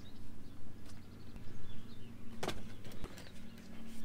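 Birds chirping over a steady low hum, with a single sharp knock about two and a half seconds in.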